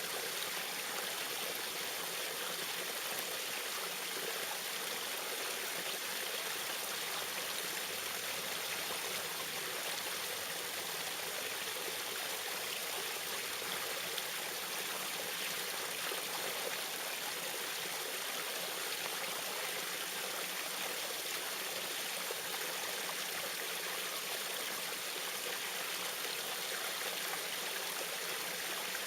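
Small waterfall splashing and trickling steadily, an even rush of water.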